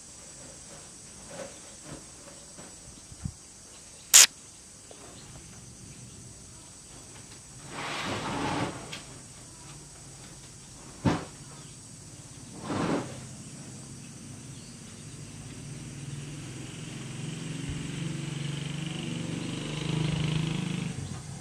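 Soft rustling of woven plastic sacks as a hand strokes a sleeping cat lying on them, with a few short rustles and a sharp click about four seconds in. A low steady rumble builds over the last few seconds.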